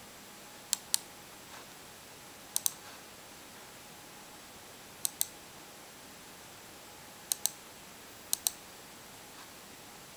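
Computer mouse button clicked in five double-clicks, each pair of sharp clicks a fraction of a second apart and the pairs spaced about one to two and a half seconds apart.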